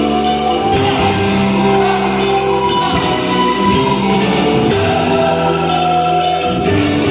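Angklung ensemble music: shaken bamboo angklung sounding held chords that change every second or so.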